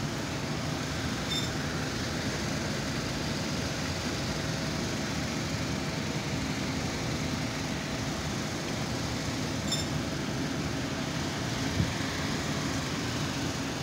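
Steady rushing background noise, with two faint short high chirps several seconds apart and a single soft knock near the end.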